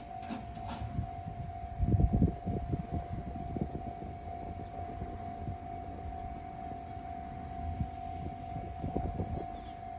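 Japanese railway level-crossing alarm sounding, its electronic tone held steady, over irregular low rumbling that swells about two seconds in and again near the end.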